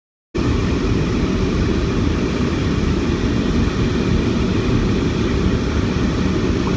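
Steady low rumbling noise that starts abruptly just after the start and keeps an even level throughout.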